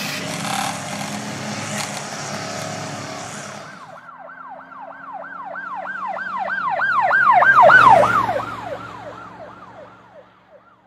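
Emergency vehicle siren in a fast yelp, about three up-and-down sweeps a second. It swells to its loudest about eight seconds in, then drops slightly in pitch and fades as it passes. Before it, for the first few seconds, there is a broad rushing noise.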